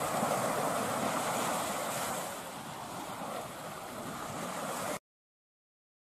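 Ocean surf washing in a steady rushing hiss that eases a little in the middle, then cuts off suddenly about five seconds in, leaving silence.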